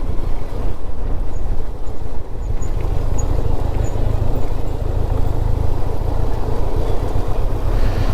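Benelli TRK 502 parallel-twin motorcycle riding at a steady pace, a constant low engine and road rumble mixed with wind noise on the microphone.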